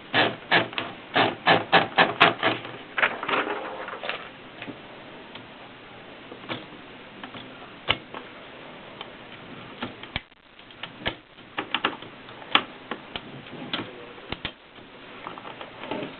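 Adler Tippa S portable manual typewriter being typed on: a quick run of key strikes in the first few seconds, then slower, scattered strokes.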